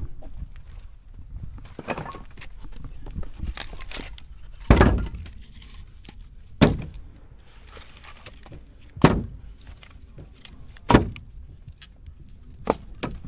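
A series of sharp, heavy thunks, the four loudest about two seconds apart, with a lighter one near the end.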